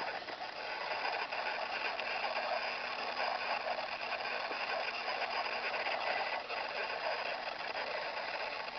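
A man snoring in his sleep, the loud snore running on almost without a break, easing briefly now and then between breaths.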